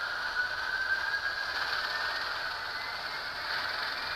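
HO scale Alco S4 model diesel locomotive running along the track, its small motor and gears whirring, with a thin whine that rises slowly in pitch as it picks up speed.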